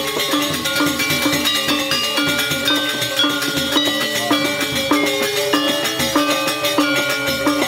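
Sasak gamelan ensemble playing, led by saron metallophones: metal keys struck with wooden mallets in a quick, unbroken run of ringing notes.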